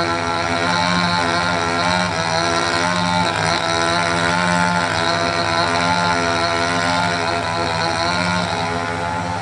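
Chainsaw engine running at a steady speed, its pitch wavering slightly.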